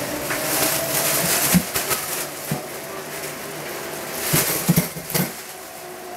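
Kitchenware being handled: a few separate light knocks and clinks, with a cluster of them near the end, over a steady background hiss.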